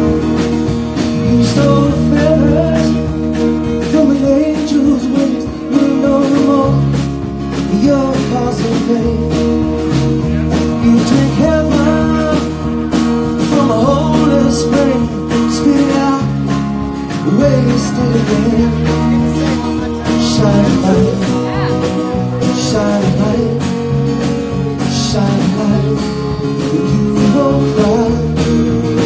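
Live band playing a song: strummed acoustic guitar with piano, bass and drums, and a man singing.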